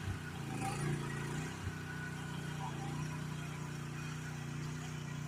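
GroundHog KH14G mini excavator's engine running steadily at a constant pitch, with a couple of short knocks in the first two seconds.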